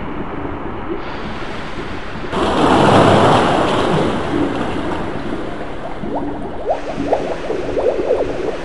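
Ocean surf washing in steadily, with one wave breaking loudly about two to four seconds in, and a string of short, sharp sounds over the wash near the end.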